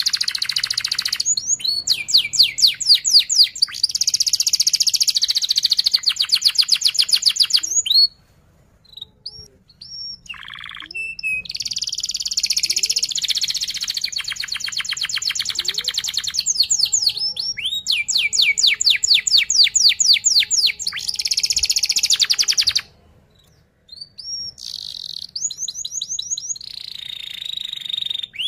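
Domestic canary singing its rolling 'ngerol' song: long phrases of fast, repeated high chirping notes run together into trills. It breaks off twice for a few seconds with only a few single calls, about 8 seconds in and again near the end.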